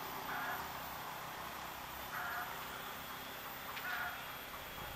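A bird calling in short repeated calls, about one every two seconds, over a faint steady hum from a distant approaching diesel-electric locomotive.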